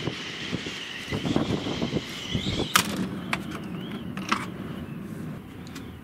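Storm wind gusting at the open front door of a motorhome: a steady rushing rumble with a wavering high whistle for the first two and a half seconds, and a few sharp clicks and knocks near the middle.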